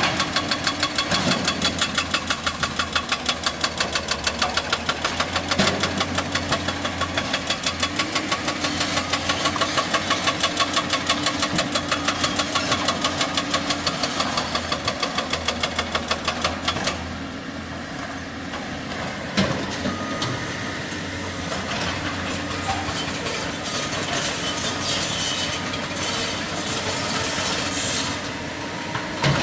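Excavator's hydraulic breaker hammering rock with rapid, regular blows over the diesel engine. The hammering stops about two-thirds of the way through, leaving the engine running with a single knock.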